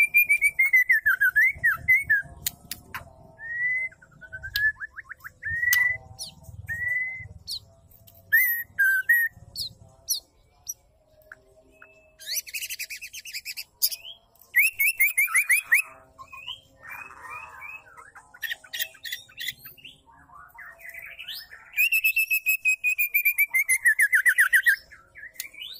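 Female white-rumped shama calling: fast runs of short notes that slide down in pitch at the start and again near the end, with short whistled phrases and harsher chattering bursts in between.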